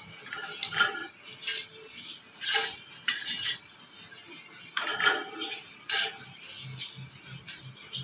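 Sharp metallic clinks and knocks, about eight spread over several seconds, as a raw roti is spread and laid on an iron tawa with a bangled hand.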